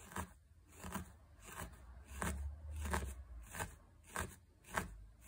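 Gauge 32 felting needle stabbed repeatedly through green carded wool into a buckwheat-hull-filled felting pad, a soft crunch with each stab, about two a second. The crunch is the needle's barbs catching and agitating the wool fibres as they mat together.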